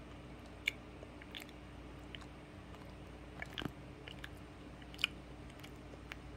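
A small dog gnawing with its teeth: irregular small clicks and crunches, the sharpest about five seconds in.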